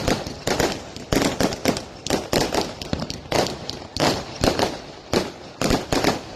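Fireworks going off in a rapid, irregular series of sharp bangs and cracks, several a second.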